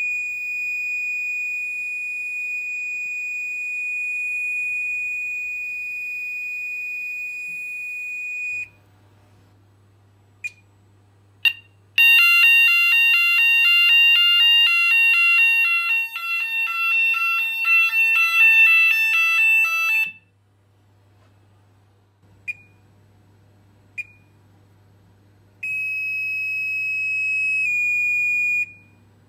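Gent S2 electronic fire alarm sounder sounding a loud, fast-pulsing alarm tone for about eight seconds in the middle. Before it a steady high tone runs for about eight seconds, then stops. Short single beeps come before and after the alarm, and a shorter steady tone near the end steps down slightly before stopping.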